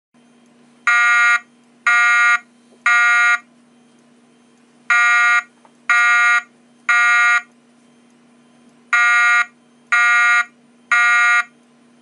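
Wheelock ET-1010 speaker/strobe sounding a temporal horn tone. Three half-second beeps are followed by a pause, and the set comes three times. This temporal-three pattern is the standard fire evacuation signal that leads into the voice message.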